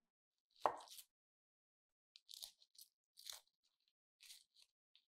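A chef's knife cuts through a shallot's root end, with one knock on the wooden cutting board about a second in. Then comes faint, scattered crackling of the dry, papery shallot skin as it is peeled off by hand.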